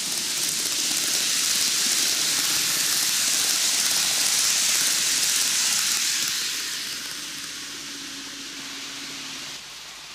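12-car N-gauge model train of a Keikyu 2100 series set rolling past on curved TOMIX track: a steady hiss of metal wheels and motor that swells as the train approaches and passes, then fades. A faint hum under it near the end stops abruptly as the last cars go by.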